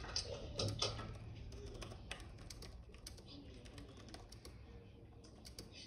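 Faint, irregular light clicks and taps, denser in the first second or so and then sparse.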